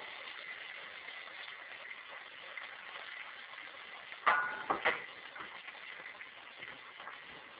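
Battered vegetables frying in hot oil: a steady, even sizzle. A few short knocks with a brief ring come about four seconds in.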